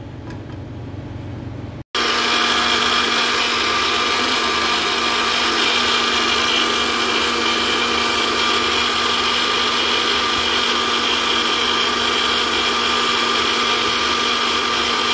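Electric blender motor running steadily, pureeing a cooked tomato and onion sauce. It starts suddenly about two seconds in.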